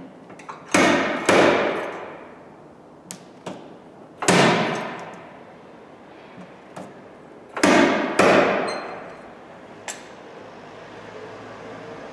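Sharp metal blows on the steel sill panel of a 2009 Seat Leon during dent repair, each ringing and dying away over about a second: two close together near the start, one in the middle, two more later, with a few light clicks between.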